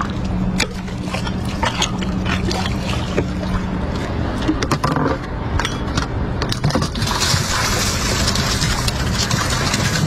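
Small boat's motor running low and steady on an aluminium boat, with water sounds and scattered sharp knocks against the hull. About seven seconds in, a steady hiss comes in over it.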